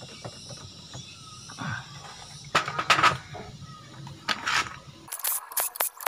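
Clutch basket of a Yamaha Sniper 150 clacking as it is rocked by hand: its worn clutch damper lets it knock, the cause of the clutch noise. Then an electric drill runs in two short bursts on the clutch spring bolts, followed by quick clicking near the end.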